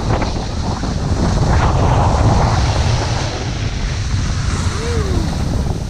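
Wind buffeting a pole-mounted camera's microphone as a snowboard slides downhill over snow: a steady rushing noise with a heavy low rumble and a hiss from the board on the snow.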